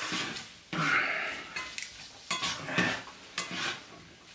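Slotted spatula scraping and turning fried potatoes and egg in a frying pan, in repeated strokes with small clatters against the pan.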